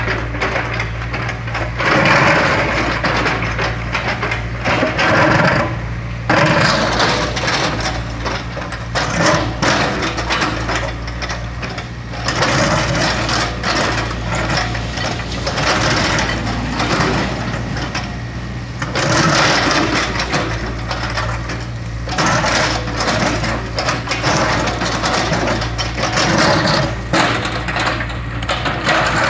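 Excavator's diesel engine running steadily, with repeated stretches of scraping, crunching and cracking as its bucket works a concrete slab.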